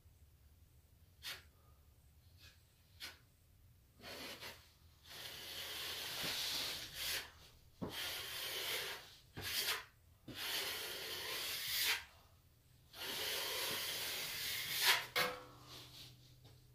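A steel plastering knife scraping joint compound along the plasterboard wall-to-ceiling corner, smoothing the mud over the taped angle and clearing the excess. After a few light clicks come four long scraping strokes of one to two seconds each, with a sharp tick near the end.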